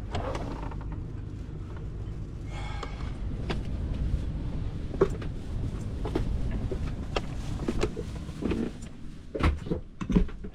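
Scattered knocks and clunks of tools and parts being handled, over a steady low rumble.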